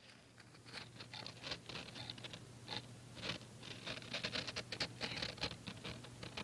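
Irregular light scratching and ticking of handling noise, a camera held against a microscope eyepiece and shifted about, with a faint steady hum underneath.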